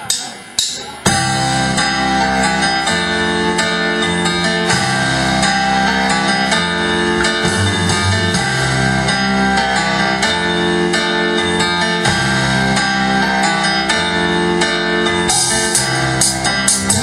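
Band music: a few sharp drum strokes, then guitars, bass and drums come in together about a second in and play on steadily, with more cymbal strokes near the end.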